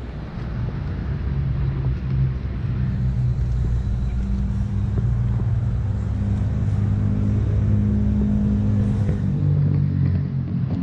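Car engine running on the move, its low hum drifting gently up and down in pitch as the speed changes.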